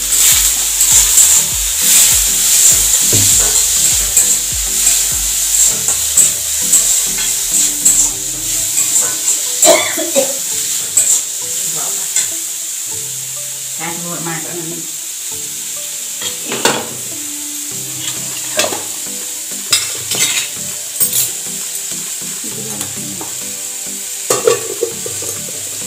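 Food sizzling in hot oil in a steel kadai over a gas flame, loudest in the first several seconds and then quieter, with a metal spoon clinking and scraping against the pan now and then.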